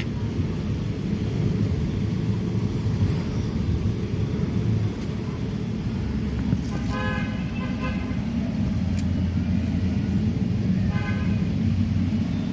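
Steady low rumble of a running vehicle engine, with two short horn-like toots, the first about seven seconds in and a shorter one about eleven seconds in.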